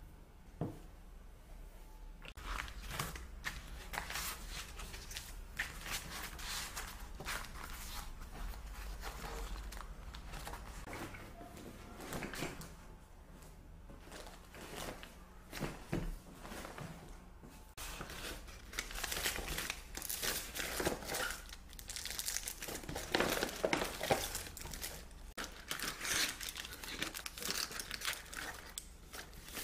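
Fabric pouches, a nylon tote and paper and plastic bags rustling and crinkling as they are handled and packed, in irregular rustles that grow busier and louder in the second half.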